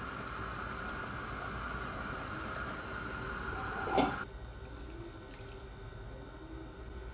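A pot of grape-leaf stew simmering, a steady bubbling hiss, with one short knock of a stainless pot lid about four seconds in. Right after the knock the sound drops abruptly to a quieter, steady background.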